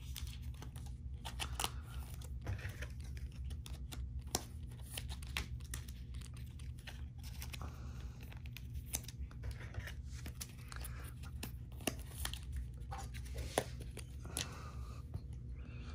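Foil wrappers of Panini Prizm basketball card packs crinkling and tearing as packs are opened, with the cards clicking and sliding against each other as they are thumbed through. Scattered small clicks and rustles throughout over a low steady hum.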